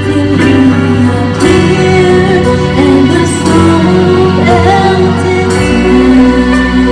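A woman singing live into a microphone over instrumental accompaniment, her voice gliding between held notes. A deeper bass note comes in a little before the end.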